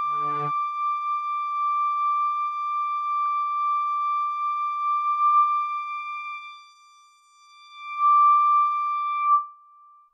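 The beat and bassline stop just after the start, leaving one steady, high synthesizer tone from a Roland MC-101 groovebox held on its own. The tone fades almost away about six and a half seconds in, swells back louder about eight seconds in, and cuts off about nine seconds in.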